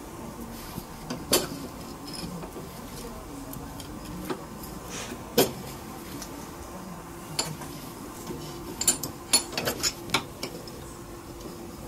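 Sharp metal clanks and clinks of steel locking pliers and a ribbed steel rod knocking against a bench vise as the rod is gripped and bent. There is a single knock about a second in, another near the middle, then a quick flurry of clinks near the end, over a steady low hum.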